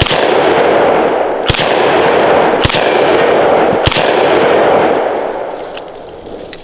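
DDI LA-K12 Puma semi-automatic bullpup 12-gauge shotgun firing four shots, roughly a second or more apart, each with a long echoing ring that dies away after the last. The string runs the magazine dry.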